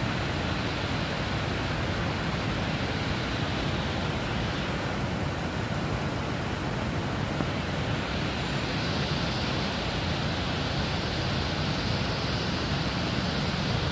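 Heavy rain falling steadily, a dense even hiss on the wet road, with a low rumble of road traffic beneath.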